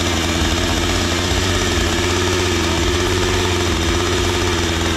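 Husqvarna two-stroke chainsaw engine running at a steady, fairly even speed.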